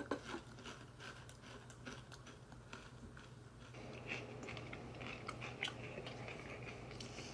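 Close-up chewing of wavy Pringles potato crisps: a run of sharp, quick crunches and crackles from the mouth, with a low steady hum underneath.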